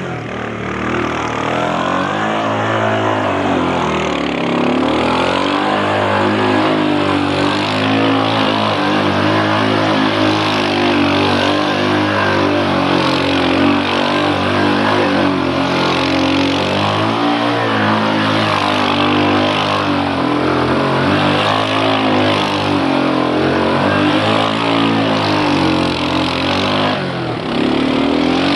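Quad bike (ATV) engine running under a rider's throttle, its pitch rising and falling every few seconds as it revs up and eases off through turns on the sand.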